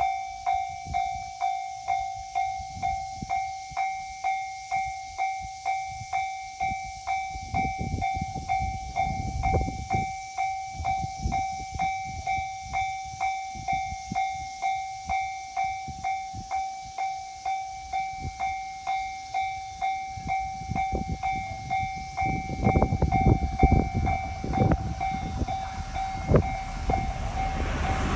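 Japanese railway level-crossing warning bell ringing steadily at about two strikes a second, the signal that a train is due. From about two-thirds of the way in, the low rumble of an approaching train on the JR Tohoku Line grows under the bell.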